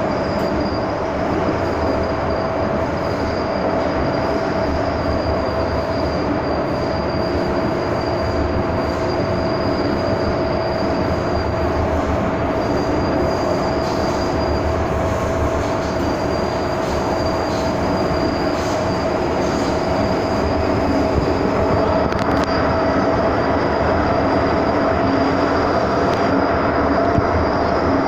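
MTR M-Train electric multiple unit running through a tunnel at steady speed, heard from inside the passenger car: a continuous rumble of wheels and running gear with a steady whine held at one pitch throughout.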